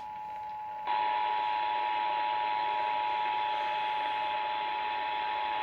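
Emergency Alert System attention signal: the two-tone alarm of 853 and 960 Hz held steady over a hiss, jumping louder about a second in.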